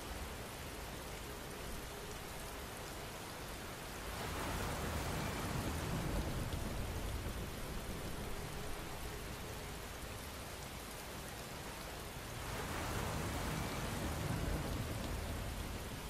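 Steady rain falling, with a low rumble beneath it. The rain swells louder twice, about four seconds in and again after twelve seconds.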